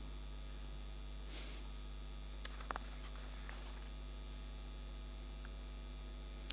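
Quiet room tone: a steady electrical hum with a few faint short clicks and soft rustles, the clicks coming about two and a half seconds in.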